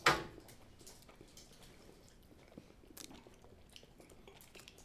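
People chewing soft, sticky strawberry roll candy, with faint wet mouth sounds and scattered small clicks. A short sharp noise comes right at the start.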